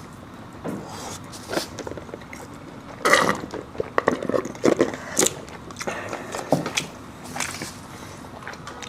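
A person biting and chewing food close to the microphone: irregular crunches and wet smacks, busiest and loudest from about three seconds in.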